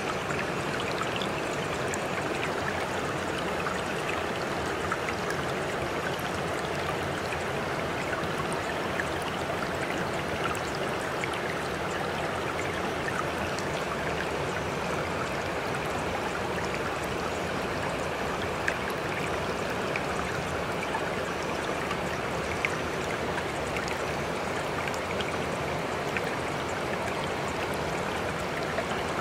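Steady rush of running water, like a flowing stream, with a few faint drip-like clicks.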